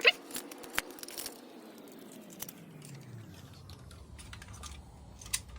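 Sharp clicks and light metallic rattles of a handheld luggage scale's hook being attached to a cable, loudest at the very start, then scattered small ticks of handling. A faint low tone slides down in pitch and settles into a steady hum.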